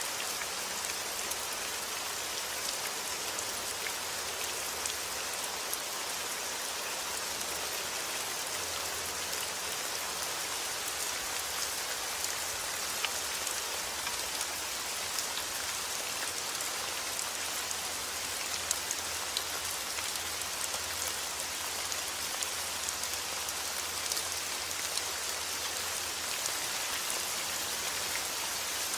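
Heavy rain falling steadily outdoors, an even hiss with scattered individual drop ticks.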